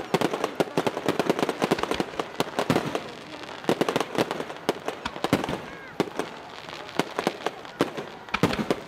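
Aerial fireworks going off in rapid, irregular bangs and crackles, dense at first and thinning out after about five seconds.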